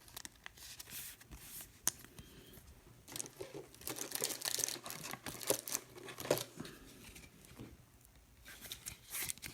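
Trading-card pack wrappers being torn open and crinkled while cards are handled: a run of rustling, tearing and small clicks, busiest in the middle.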